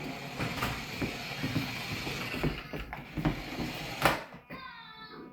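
Remote-control Tow Mater toy truck driving across the floor: its small electric motor whirring with plastic clicking and rattling, and a sharp knock about four seconds in.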